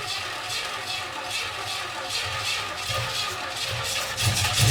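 1959 Pontiac Catalina V8 being cranked over on its starter with a steady rhythmic churn, not catching, growing louder near the end. The owner says the engine is flooded.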